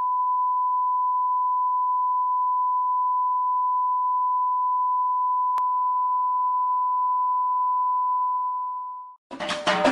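A 1 kHz line-up test tone, the reference tone that goes with colour bars, held as one steady pure beep at a constant level, with a single click about five and a half seconds in. The tone cuts off suddenly near the end and music starts.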